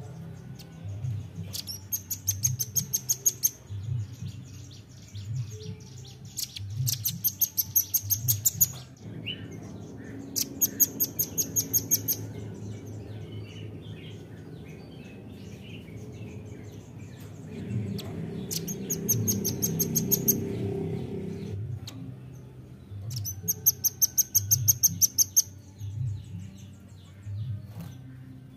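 Velvet-fronted nuthatch calling in five bursts of fast, high-pitched chattering notes, each lasting about two seconds, over low background noise.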